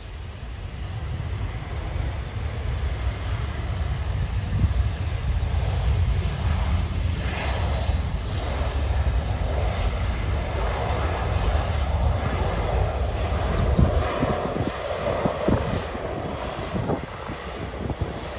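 Jet engines of a Condor Airbus A320 rumbling as the airliner rolls out along the runway just after touchdown. The sound swells over the first few seconds, holds strong while the plane passes, then eases off near the end.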